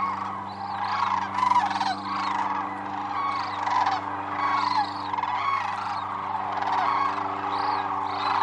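A large flock of sandhill cranes calling: a dense, continuous chorus of many overlapping calls.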